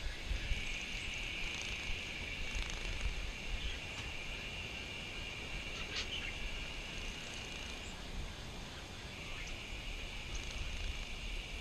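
Insects droning in a steady high buzz that breaks off for about a second some eight seconds in, over a low rumble, with a single sharp click about six seconds in.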